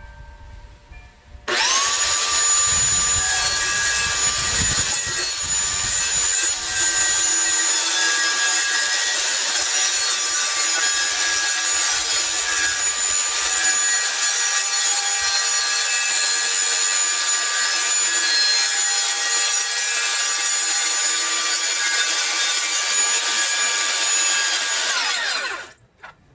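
Electric power tool cutting through FRP (fibreglass-reinforced plastic) wall panel. The motor starts suddenly about a second and a half in, runs steadily with a high whine for over twenty seconds, then winds down near the end.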